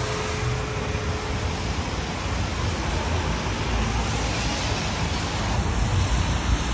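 Steady city traffic noise with a low rumble. The lingering hum of a church tower bell fades out in the first second and a half, with no further strikes.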